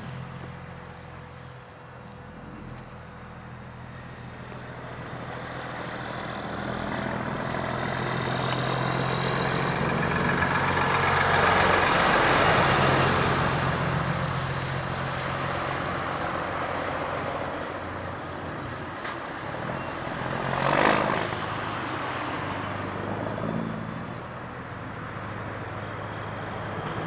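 Volvo FH truck's diesel engine and exhaust running at a steady pitch as it drives past, growing louder to a peak about halfway through and then fading. A short hiss comes about three quarters of the way in.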